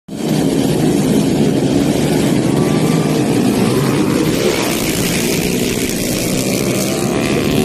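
A pack of small motorcycles revving and accelerating away together from a dirt-track race start, many engines running at once, loud and steady.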